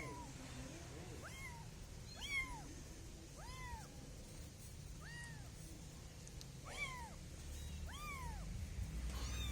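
Kitten meowing repeatedly, about seven high-pitched calls that each rise and fall in pitch, spaced a second or so apart.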